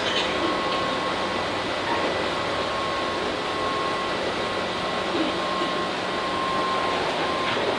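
Tobu 8000 series electric train running steadily between stations, heard from inside the passenger car: an even rumble of wheels on rail and running gear with a faint steady whine.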